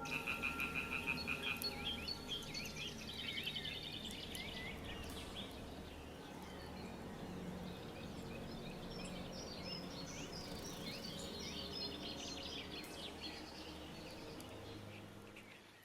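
A chorus of frogs calling, many short trilled calls overlapping, loudest in the first few seconds and fading out near the end.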